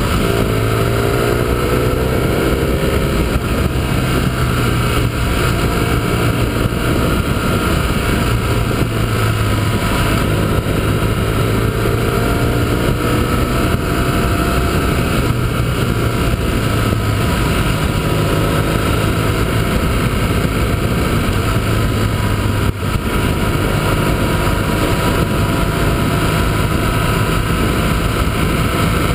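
Motorcycle engine running at road speed, heard from the bike itself, its pitch rising and falling repeatedly with throttle and gear changes, over a steady rush of wind noise.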